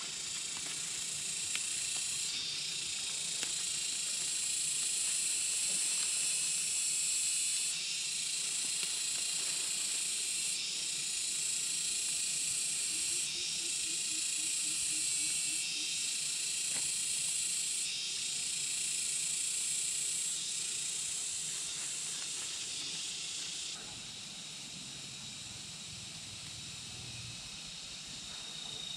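A steady, high-pitched drone from a chorus of insects. Its loudness jumps up or down abruptly every few seconds.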